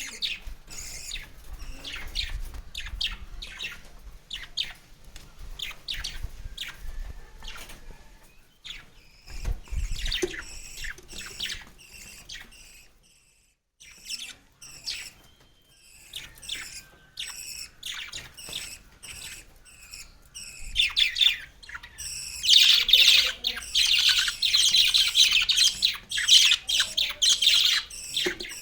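A young bird chirping in rapid, high repeated calls, swelling about three-quarters of the way through into a loud, continuous run of begging chirps as it is fed.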